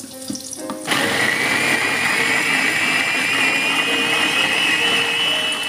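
GOTO Capsule electric food chopper starting about a second in and running steadily, its blades chopping ice cubes and red vegetables. Its motor whine rises slightly in pitch as it runs, then stops at the end.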